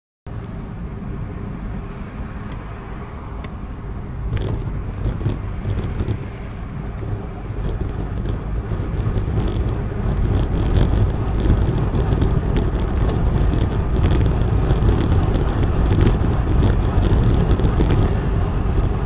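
Wind buffeting an action camera's microphone, with tyre and road rumble from a moving bicycle, growing louder as the speed rises, with light scattered rattles and ticks.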